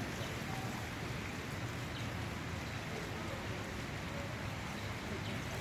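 Water rushing steadily, an even, unbroken wash of noise.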